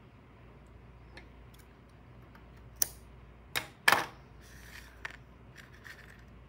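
Metal scissors clacking against a wooden tabletop as they are handled and set down: three sharp clicks near the middle, the last the loudest. Soft rustling of the cardboard and yarn piece being picked up follows.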